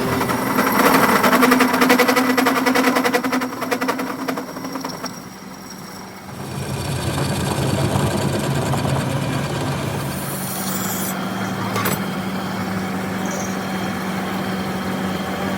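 An engine running, with a rapid pulsing for the first few seconds, dropping off briefly about six seconds in, then a steadier low hum.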